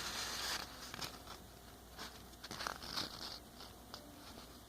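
A square sheet of origami paper being handled and slid into line for a fold, giving soft rustling and small crinkles. The rustle is loudest in the first half-second and is followed by a few faint crackles.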